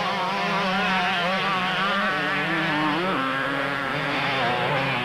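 Several two-stroke 125cc and 250cc motocross bikes racing, their engines revving up and down in pitch, with one rising sharply about three seconds in.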